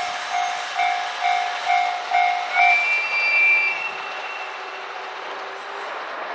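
Level crossing alarm ringing in even pulses about twice a second, stopping about three seconds in. As it stops, the departing KiHa 261 series diesel express sounds a high horn note for about a second, and the train's running noise fades.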